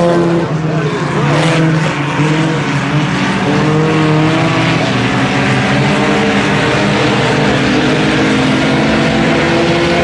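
A pack of IMCA Sport Compact race cars running laps on a dirt oval: several four-cylinder engines at high revs at once, their pitches rising and falling as the cars accelerate out of the turns and lift off for the corners.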